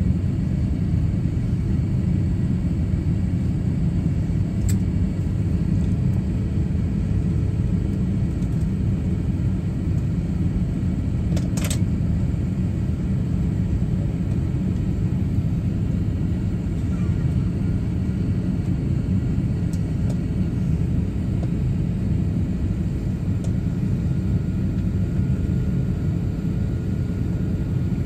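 Steady low rumble inside an airliner cabin as the jet taxis slowly toward its gate. A single sharp click sounds about eleven and a half seconds in.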